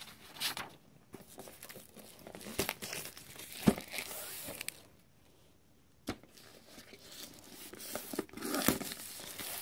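Plastic shrink-wrap being torn and crinkled off a cardboard box, with one sharp click a little over three and a half seconds in and a short lull in the middle.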